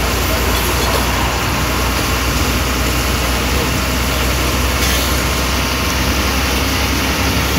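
Ashok Leyland diesel bus engine running steadily at cruising speed, heard from inside the cab as a low rumble mixed with road and cabin noise.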